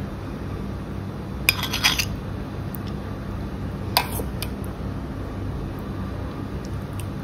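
Utensils clinking against a dish as dahi vada is scooped out for serving. A quick cluster of clinks comes about a second and a half in and a single sharper clink around four seconds, with a few light taps after, over a steady low hum.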